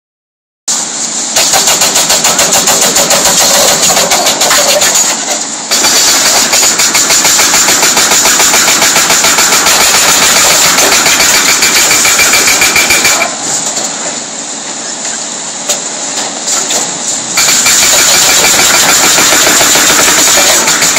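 Excavator-mounted hydraulic breaker hammering the concrete of a motorway overpass in rapid, steady blows. It pauses briefly about five seconds in and again for about four seconds past the middle, leaving the excavator engines running.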